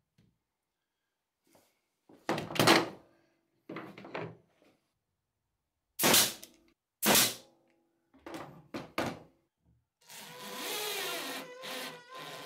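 Pneumatic brad nailer firing several sharp shots, driving brads into plywood. Near the end a small motor starts and runs steadily.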